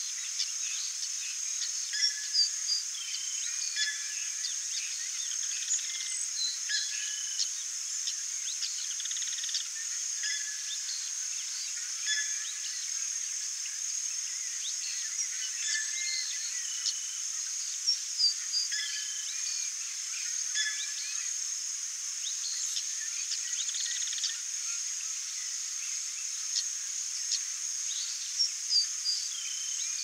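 Natural outdoor ambience: a steady high-pitched insect drone with many short, scattered bird chirps and calls over it, and a few louder calls in brief clusters about two seconds in, midway and near the end.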